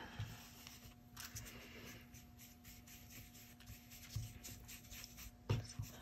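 Faint rubbing and scratching of a round ink blending tool worked over the edges of a paper card front, dabbing and swiping Distress Oxide ink onto it.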